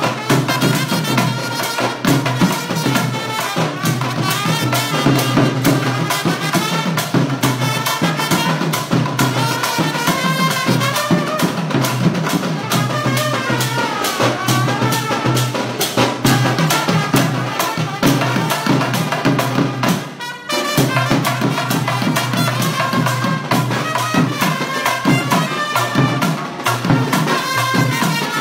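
A small brass band of several trumpets playing an upbeat tune together over a steady beat on a shoulder-slung double-headed drum beaten with sticks. The music breaks off briefly about twenty seconds in, then carries on.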